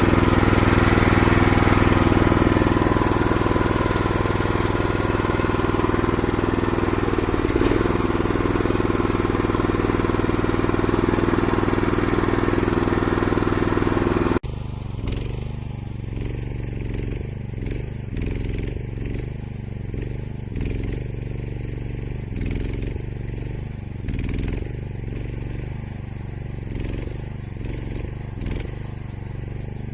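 The engine of a homemade hydraulic skid steer loader running steadily and loudly. About halfway through, an abrupt cut leaves it quieter and running more unevenly.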